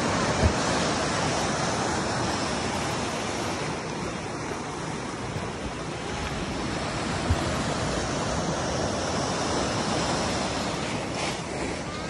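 Sea waves surging and breaking against a concrete seawall: a steady wash of surf, with two brief low thumps, the first about half a second in and the second about seven seconds in.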